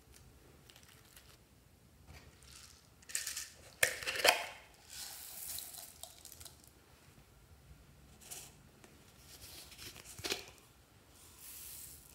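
Small foam beads poured from containers into a dish of slime ingredients: crisp rustling, pattering pours in several spells, with sharp clicks and knocks of the containers, the loudest about four seconds in.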